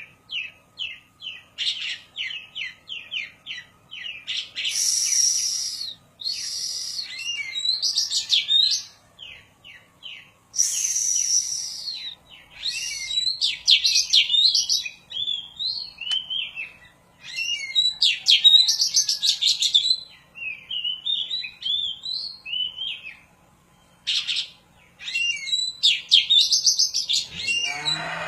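A kacer poci (oriental magpie-robin) sings a long, varied song: fast runs of sharp chirps, trills and harsh buzzy phrases with brief pauses. Near the end it starts a low, drawn-out moo-like call, its imitation of a cow.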